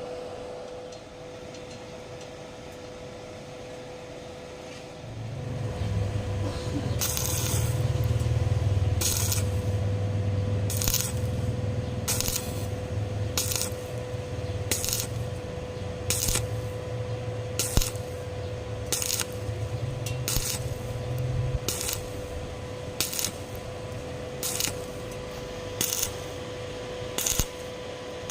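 Sharp metallic clinks, one about every second and a half, over a steady low hum that sets in about five seconds in and stops about twenty-one seconds in.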